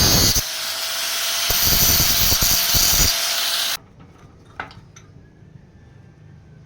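A power tool running loud with a faint steady whine, then stopping abruptly a little under four seconds in, followed by a few light clicks of handling.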